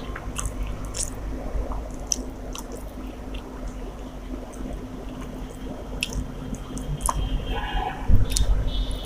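A person chewing a mouthful of rice and chicken curry, with wet, squishy mouth sounds and small clicks over a steady low hum.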